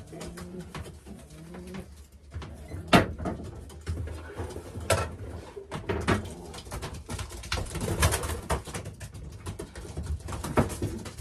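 Pigeons cooing in a small wooden loft, with a string of sharp knocks and clatter from a bird being handled; the loudest knock comes about three seconds in.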